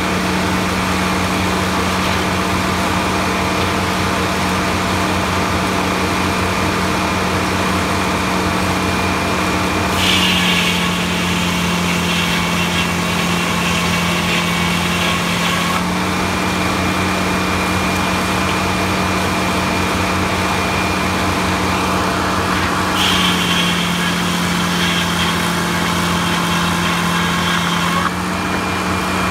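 Circular sawmill running with a steady machine drone, its large toothed blade cutting through a big log in two passes: the sound brightens and rises about ten seconds in for some six seconds, and again from about twenty-three seconds in until near the end.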